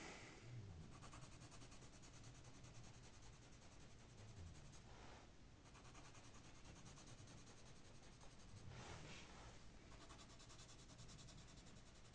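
Faint pencil scratching and rubbing on paper, with two slightly louder stretches of strokes about five and nine seconds in.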